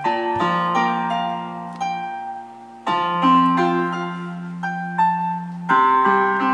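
Backing music of slow piano chords, each struck and left to ring and fade, with single notes in between; the heaviest chords fall about half a second in, about three seconds in, and near the end.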